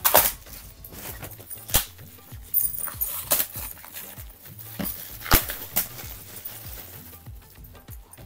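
Shiny holographic gift wrap crinkling and tearing as it is pulled off a large flat package, in loud, irregular crackles.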